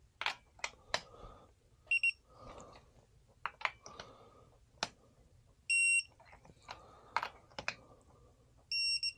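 Quinn 3/8-inch drive digital torque wrench beeping three times on reaching its set torque while tightening spark plugs: a short double beep about two seconds in, then longer single beeps near six seconds and near the end. Between the beeps come clicks and short rasps from the wrench's ratchet head being worked.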